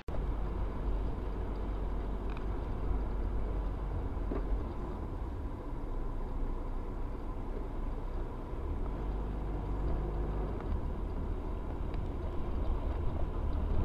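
Steady low rumble of a car driving at highway speed, heard from inside the cabin: engine and tyre noise, with a faint thin steady whine above it.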